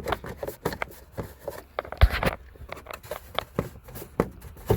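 Hard plastic clicking and knocking as a side-by-side's light housing and trim are worked and shoehorned out by hand, with a louder thump about two seconds in.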